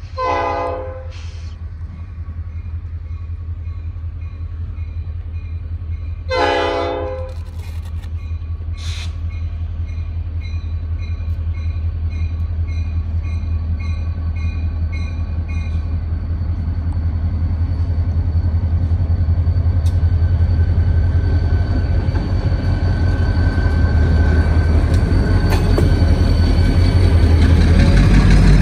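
Diesel freight locomotive horn sounding two short blasts about six seconds apart, over the steady low rumble of the passing freight train, which grows louder toward the end.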